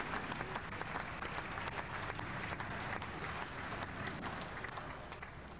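Crowd applauding, a dense patter of many hands clapping that fades out near the end.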